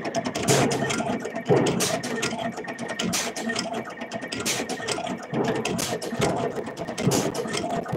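Automatic wire cutting and stripping machine running: its feed motors whirring and its blade block clicking shut over and over in a fast, uneven run of sharp clicks as it chops and strips short lengths of wire.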